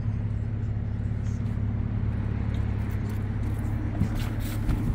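Steady low drone of the 2018 Mercedes-AMG C43's twin-turbo V6 idling, with a few light clicks near the end.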